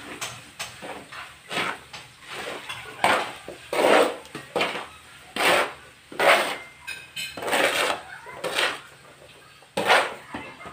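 Steel trowel scraping and chopping through cement and water on a concrete floor, mixing mortar by hand in irregular strokes about one or two a second.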